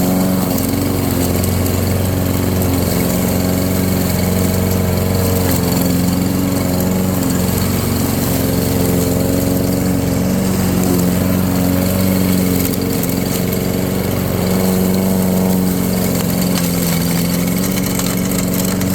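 Gasoline lawn mower engine running steadily while chopping up leaves into mulch, its pitch wavering slightly as the load changes.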